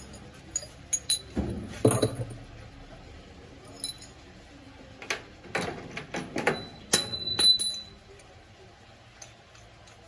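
Metal tools and small parts being handled, clinking and knocking in two clusters of sharp strikes. One strike about seven seconds in rings briefly.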